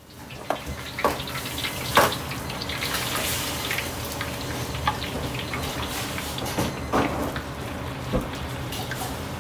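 Busy wok station: a steady rush of a running tap and the gas wok burner, broken by a few sharp knocks and clinks of kitchen metal. Near the end sliced pork goes into the hot oil in the wok.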